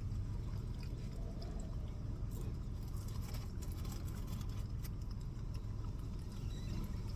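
Steady low rumble with a few faint clicks over it.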